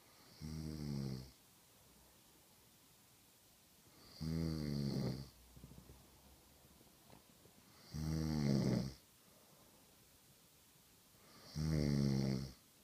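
A sleeping person snoring: four buzzing snores about a second long, one every three to four seconds.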